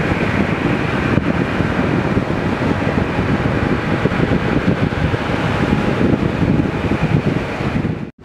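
Steady jet engine noise from an airliner moving on the airfield, mixed with wind buffeting the microphone. It cuts off suddenly near the end.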